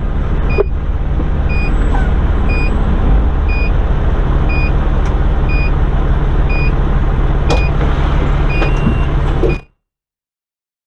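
Pierce Velocity fire engine's 470 hp Detroit Series 60 diesel running at low speed while its backup alarm beeps about once a second, the sign of the truck reversing. A few knocks from the body, and the sound cuts off suddenly near the end.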